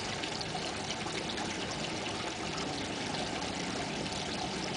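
Steady, even outdoor background hiss with no distinct event.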